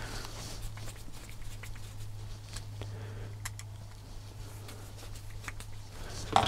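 Faint, sparse clicks of a Phillips screwdriver working small screws into a plastic gear differential case, over a steady low hum.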